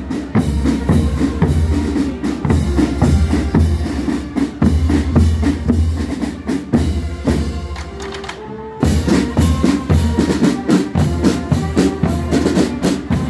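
Marching band drum line playing a steady beat on bass drums, snare drums and cymbals. The drumming drops off briefly about eight seconds in, then comes back in at full strength.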